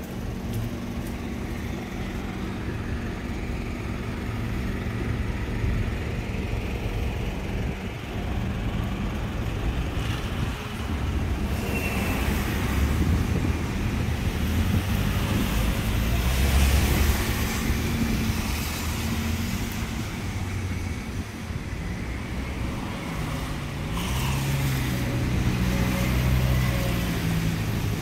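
Street traffic: engines running steadily and vehicles passing, the loudest pass a little past halfway, with an engine changing pitch near the end.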